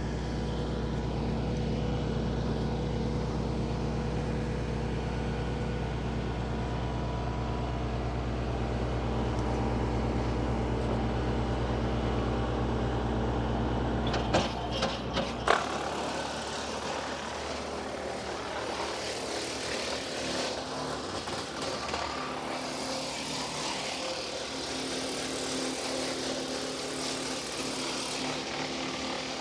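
Kubota L3560 diesel tractor running a WoodMaxx WM-8M PTO wood chipper with a steady low hum. About halfway there are a few sharp knocks, then the low hum falls away and a rougher, hissy noise takes over.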